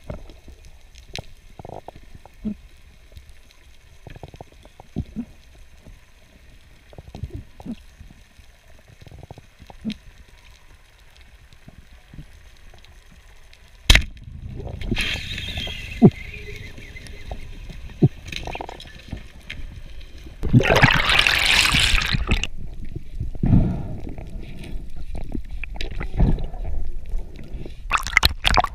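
Underwater reef ambience with scattered faint clicks, broken about halfway by one sharp crack of a speargun being fired at a tuskfish. Louder churning water noise follows, with a loud rush of water lasting about two seconds and a run of knocks near the end.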